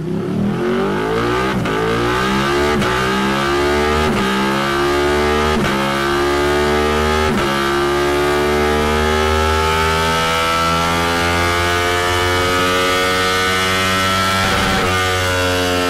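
Ducati Panigale twin-cylinder engine with a Termignoni exhaust, revved hard on a dynamometer. It climbs in pitch through several quick gear changes in the first seven seconds or so, then holds a long, slowly rising pull at high revs.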